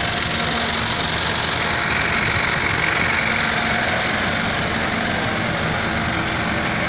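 A vehicle engine idling steadily, with a constant hiss over it.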